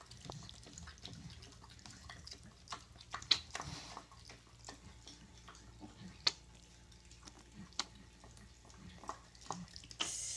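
Piglets drinking milk, lapping and suckling: scattered wet smacking clicks, a few of them sharper and louder.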